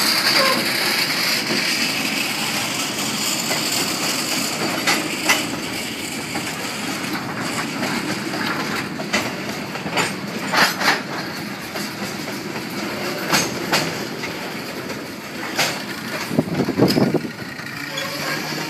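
CSX freight train of loaded chemical tank cars rolling slowly past: a steady rumble of steel wheels on rail, with scattered sharp clicks and knocks. The diesel locomotive's sound is strongest at the start and fades over the first few seconds as it moves away.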